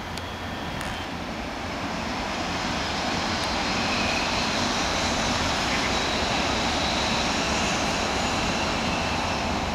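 Electric train, a JR 115 series EMU, running slowly past on depot tracks: a steady rush of motor and rail noise that builds over the first two seconds and then holds.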